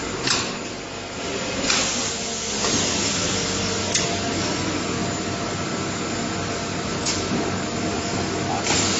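High-frequency plastic welding machine running with a steady mechanical hiss and hum, broken about five times by short sharp hisses and clicks of the machine working.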